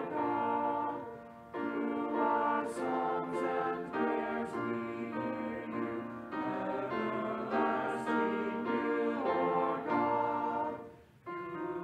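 Small mixed church choir singing a slow anthem in long held chords. The singing breaks off briefly about a second and a half in and again shortly before the end.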